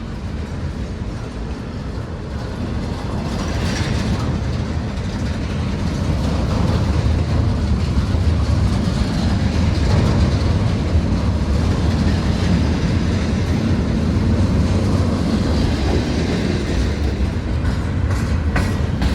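Freight train of intermodal well cars carrying shipping containers rolling past, a steady rumble of wheels on rail that grows louder over the first several seconds and then holds.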